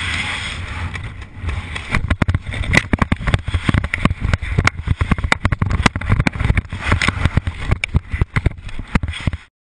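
Wind rushing and buffeting a skydiver's camera microphone during a fast parachute descent, from about two seconds in breaking into rapid, irregular sharp gusts and flaps, then cutting off suddenly just before the end.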